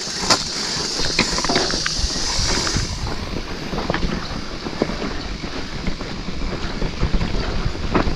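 Mountain bike riding down a rocky trail: tyres clattering and the bike rattling over stones, with wind rushing on the microphone. A steady high hiss sits over it for the first three seconds.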